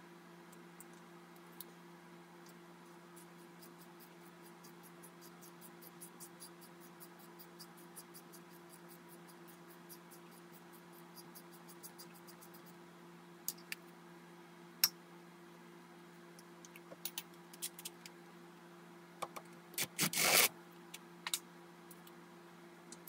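Hand work with a caliper piston tool on a rear brake caliper. A run of faint, evenly spaced ticks lasts several seconds, then come scattered clicks and a short scraping rustle near the end, over a steady low hum.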